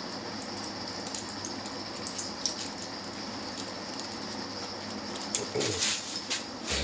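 Small clear plastic medicine packet crinkling and crackling in the hands as it is opened, in small scattered ticks over a steady background hiss, with louder rustles of plastic near the end.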